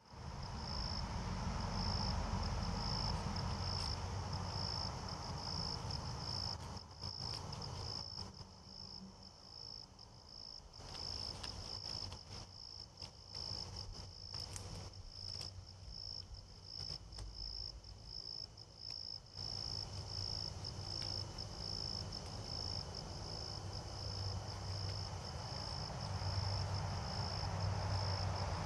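Insects chirping in a steady high-pitched pulse, about two chirps a second, over a low rumble, with scattered clicks and rustles in the middle.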